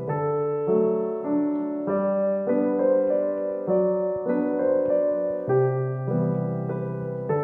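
Background piano music: a melody of single notes changing about every half second over held bass notes.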